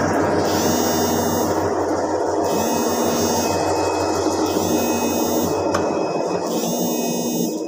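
Heavy lathe running with a large flywheel mounted between chuck and tailstock: a steady machine noise with a low hum under it. A high tone sounds about every two seconds.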